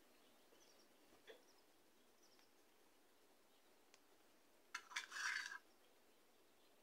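Mostly near silence, with a faint tick about a second in and a short rustle of fabric about five seconds in as the cloth is handled and pinned.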